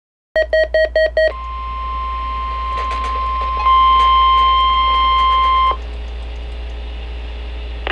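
Five quick beeps, then the NOAA Weather Radio 1050 Hz warning alarm: one steady tone held for about four seconds that gets louder partway through and cuts off suddenly. Radio hiss and a low hum are left after it.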